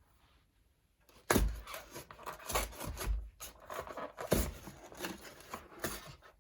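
Hands handling parts and packaging: irregular scraping, rubbing and light knocks that start about a second in, loudest at the first knock.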